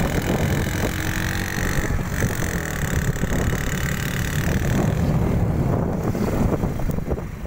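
Steady rush of wind on the microphone with road and engine noise from a moving vehicle.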